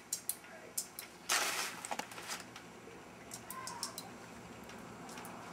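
Small, uneven clicks of airsoft BBs being thumbed one by one into the metal magazine of a WE Colt 1911 gas blowback pistol, with a short soft noise about a second and a half in.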